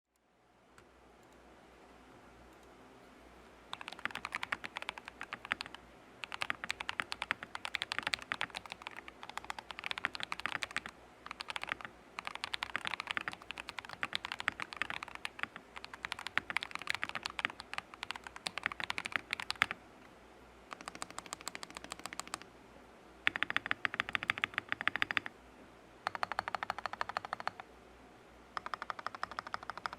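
Typing on a mechanical keyboard: runs of rapid keystroke clicks one to three seconds long, separated by brief pauses, starting about four seconds in.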